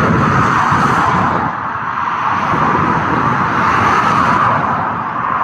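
Boeing 787-8 Dreamliner's jet engines running, a loud, steady noise with a strong hum in the middle of the range, easing slightly about a second and a half in and again near the end.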